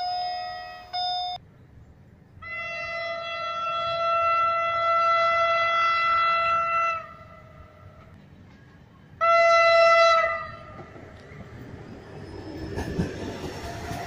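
Polish train horns sounding the Rp1 'attention' (baczność) signal. Short horn blasts come in the first second or so, then one long blast of about four and a half seconds, and another blast of about a second near the middle. Near the end, a passing train rumbles and its wheels clatter on the rails.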